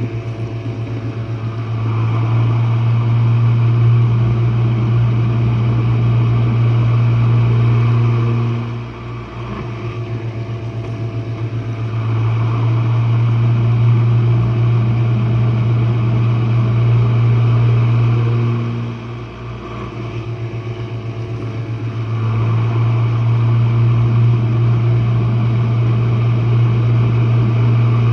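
Jenn-Air dishwasher running, heard from down at its base: a loud, steady motor hum under the hiss and swish of water. It swells and eases about every ten seconds, with three loud stretches and a quieter, pulsing stretch between each.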